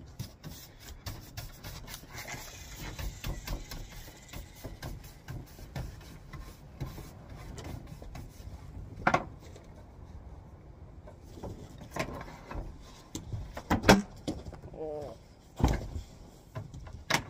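Bristle hand brush sweeping sanding dust across a sanded wooden tabletop, a soft hiss, with several sharp knocks and taps in between.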